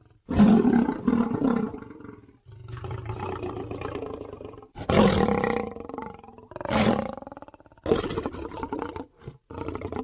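Lion roaring: a run of about six roars, one after another, each one to two seconds long, with brief pauses between them.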